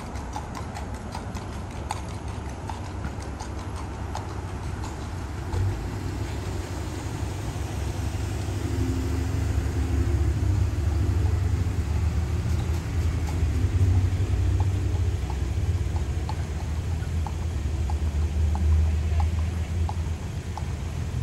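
Horse's hooves clip-clopping at a walk on an asphalt street in a regular beat, over the low rumble of a car engine that grows louder about five seconds in.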